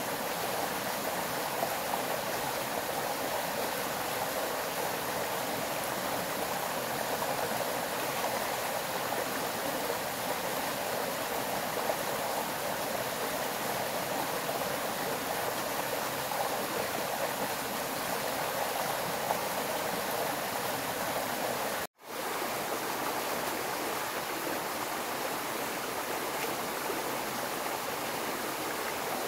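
Steady rush of a flowing forest stream, briefly cutting out about three quarters of the way through.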